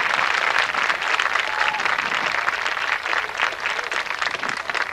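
Audience in the stands applauding, a dense spatter of many hands clapping.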